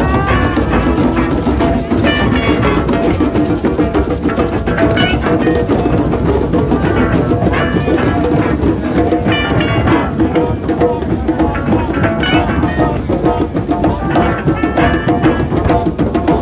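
Drum circle: many hand drums played together in a dense, steady rhythm, with a melody over the drumming.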